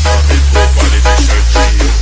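Electronic dance music with a heavy held bass under a chopped, pitched sound that repeats about four times a second.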